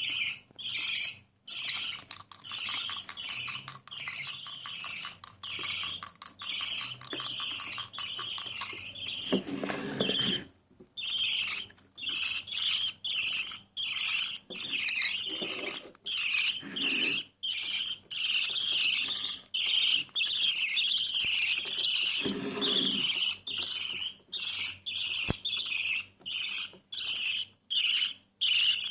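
Baby budgie's food-begging calls: high-pitched, raspy chirps repeated over and over in quick succession with short breaks between them.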